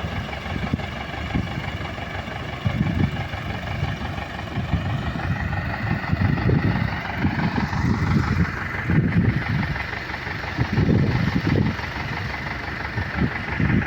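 An engine running steadily, with uneven low pulses under a steady hum.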